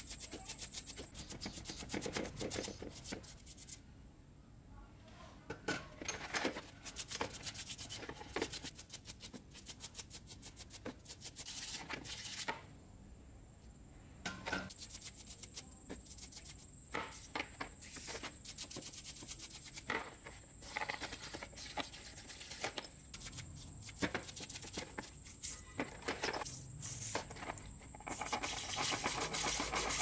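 A paintbrush scrubbing greasy drill gears, a shaft and a ball bearing in a plastic basin of cleaning liquid. The bristles rub in quick, irregular strokes, with small clicks of the metal parts, two short pauses, and denser scrubbing near the end.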